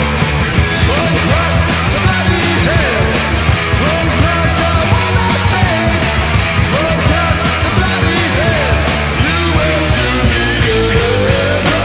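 Loud speed metal recording: driving full-band playing with steady percussive hits and melodic lines bending up and down in pitch.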